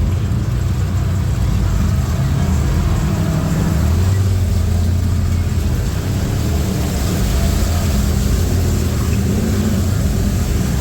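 Four-wheeler (ATV) engine running steadily while riding, with a slight swell in engine level about four seconds in.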